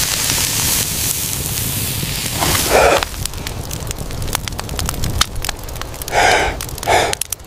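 Meat sizzling over a wood fire, with a steady hiss and many sharp crackles and pops from the burning embers. A few short louder bursts stand out about three seconds in and twice near the end.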